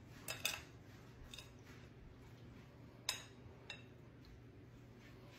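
Quiet squishing of hands pressing freshly churned butter in a ceramic bowl to work the buttermilk out, with a few light clicks against the bowl, over a low steady hum.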